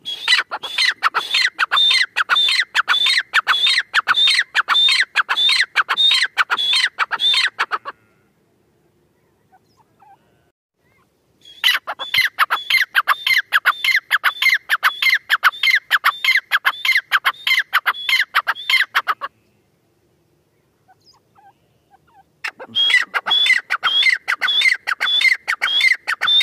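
Female grey francolin calling: three long runs of fast, repeated high-pitched calls, about two to three a second, each run lasting roughly eight seconds, with silent pauses between the runs.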